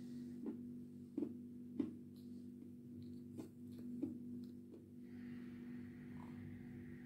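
Close-up mouth sounds of a mouthful of chalky edible clay being chewed and smacked: about half a dozen sharp wet clicks over the first five seconds, over a steady low electrical hum.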